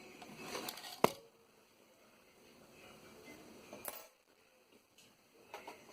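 A sharp click or tap about a second in and a lighter one near four seconds, amid faint handling noise of small hard objects on a workbench.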